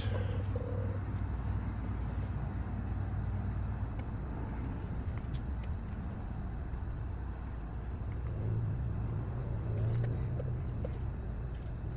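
Steady low background rumble with faint outdoor ambience, and a few light clicks from small metal wire ferrules being handled and test-fitted into terminals.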